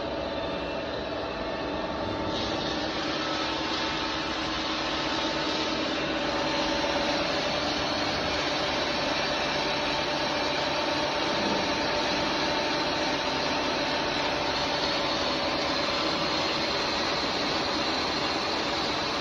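CNC bridge machining center running with a steady whine from its spindle while boring holes with an indexed rotary head. The cutting noise steps up about two seconds in and again about six seconds in.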